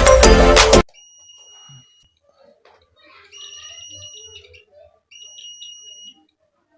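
Background music cuts off under a second in, then a homemade security alarm's buzzer sounds three steady, high-pitched beeps, each about a second long with short gaps between them.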